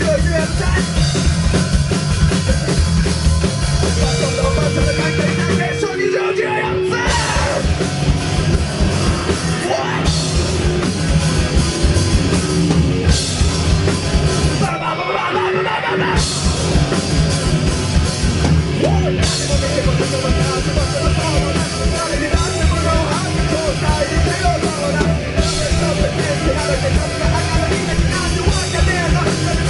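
Live rock band playing a loud, heavily distorted song with pounding drums and yelled vocals, with short breaks about six and fifteen seconds in.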